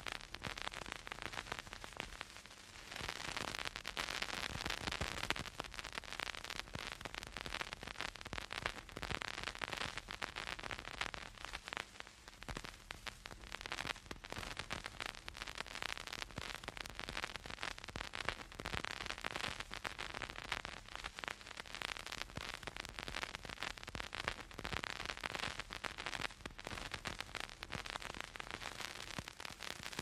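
Vinyl record surface noise from a turntable stylus riding the groove with no music: a dense, steady crackle of small pops and clicks over hiss, the sound of a dusty, scratchy record. It dips briefly softer about two seconds in.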